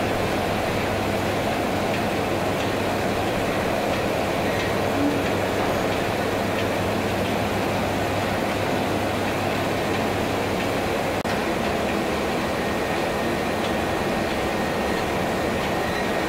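Tekno Stamap Croymat 12000 croissant-rolling machine running steadily, its conveyor belt and rollers making a continuous mechanical noise with a low hum underneath.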